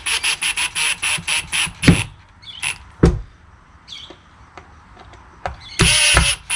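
Cordless impact driver on its lowest setting, driving screws into MDF. It hammers rapidly for about two seconds over a high motor whine, then there is a single knock, and another short hammering burst comes near the end.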